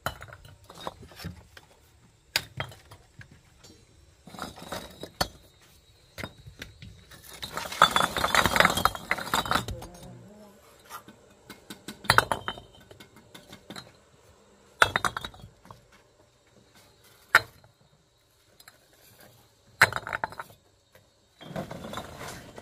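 Hard clinks and knocks of bricks being handled and set down one at a time, spaced a few seconds apart, with a longer scraping rush about eight seconds in.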